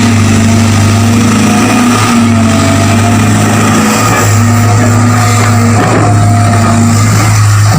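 Excavator's diesel engine running steadily with a loud low hum, with a faint whine rising and falling in pitch now and then.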